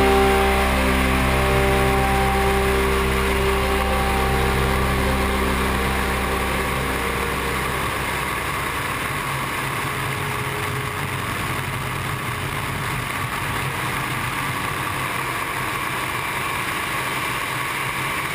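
Turbine Thrush crop-spraying plane's Walter turboprop and propeller humming in flight, heard together with the rush of airflow over the wing-mounted microphone. The hum fades over the first several seconds, leaving mainly a steady rushing wind noise.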